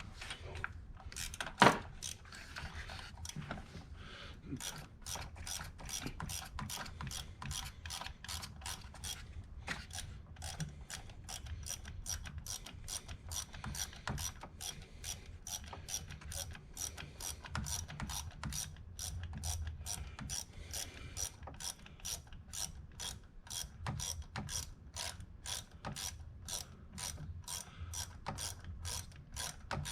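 Hand socket ratchet clicking steadily, about two clicks a second, as long bolts are run down snug into the thermostat housing. A single sharper knock comes about two seconds in.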